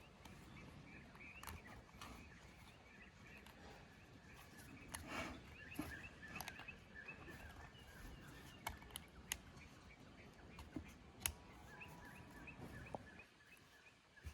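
Faint repeated bird chirping throughout, with a few sharp light clicks of small metal chainsaw parts being handled during piston and ring fitting, the loudest about 11 seconds in.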